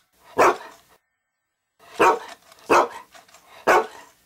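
A dog barking: one bark, a pause of over a second, then three more barks in quick succession.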